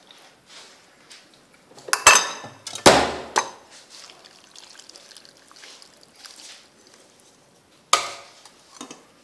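A metal pot knocks twice against a ceramic soup bowl, then broth pours from the pot into the bowl with a faint splashing. One more sharp clink comes near the end.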